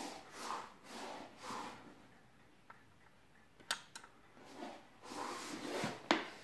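Soft rustling swells, then a few sharp clicks, the loudest one near the end.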